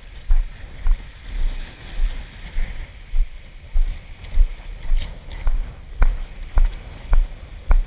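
Walking footsteps on sand, about two a second, each with a low thud and a short crunch, over a steady rush of wind on the microphone.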